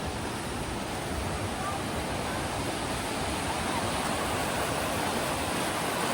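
Steady rushing of a creek's cascading water, slowly growing a little louder through the second half.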